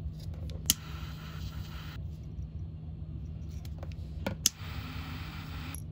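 Steel scissors snipping through the ends of 550 paracord: a sharp snip about a second in, and two more in quick succession after about four seconds.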